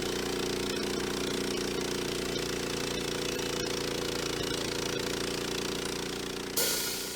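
Sawmill engine running steadily under milling, at an even pitch. About six and a half seconds in, a sudden loud cymbal crash as drum music starts.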